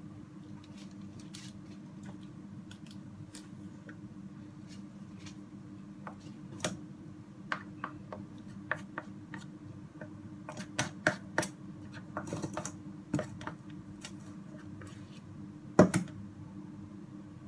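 Plastic spoon scooping thick cake batter in a stainless steel mixing bowl: scattered light clicks and scrapes against the bowl, with one louder knock near the end, over a steady low hum.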